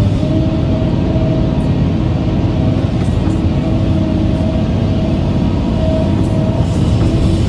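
Heavy machine engine running steadily with a deep rumble.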